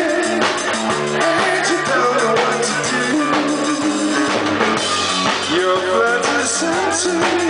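Live band playing: a man singing into a microphone over electric bass, guitar and a drum kit, heard from within the audience.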